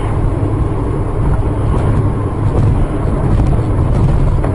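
Steady low rumble of a moving vehicle, road and wind noise with no distinct events.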